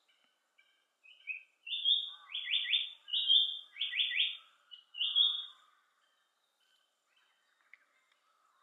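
Japanese paradise flycatcher singing its 'tsuki-hi-hoshi, hoi-hoi-hoi' song: a long whistled note, then three quick falling notes, twice over, ending on another long note.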